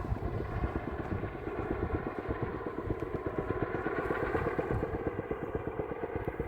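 Helicopter flying nearby, its rotor chopping rapidly and steadily over the drone of its engine; the hiker takes it to be carrying water to a wildfire.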